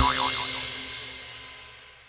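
The closing chord of a children's song ringing out and fading away, with a brief wavering note at the very start.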